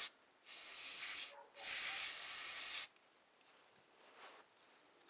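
Aerosol spray can of parts cleaner hissing in two bursts, the second longer, as small carburetor parts are sprayed clean; after that only faint handling sounds.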